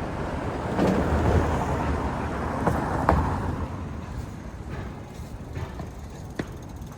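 A motor vehicle passing close by on the street, its engine and tyre noise swelling about a second in and fading away over the next few seconds, with a few short sharp clicks.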